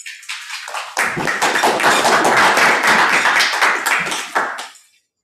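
Audience applauding, building to full strength about a second in and dying away just before the end.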